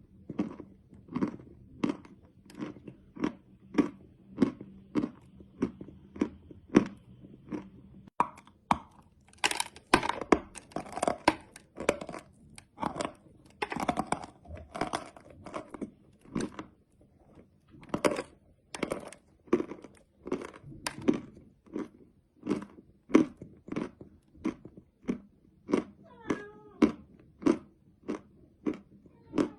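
Close-up chewing of chalk candy: crisp crunches in an even rhythm of about one and a half chews a second, with a stretch of denser, louder crunching in the middle.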